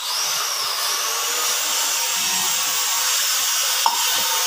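Electric blender running, chopping dried red chillies with water into chili paste. The motor's whine rises as it spins up at the start, then holds steady, with one short click near the end.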